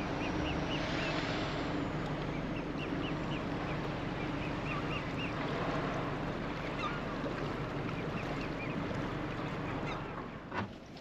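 A small boat's engine running steadily under way, with the rush of water and wind, over clusters of short high chirps from birds. It falls quieter near the end, and a few sharp knocks follow.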